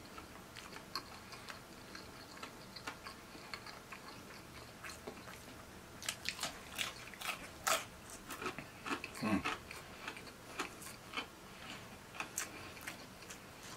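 Close-miked mouth sounds of eating: chewing, then bites into fried chicken with crisp crunches of the breading. The clicks and crunches come thicker from about six seconds in.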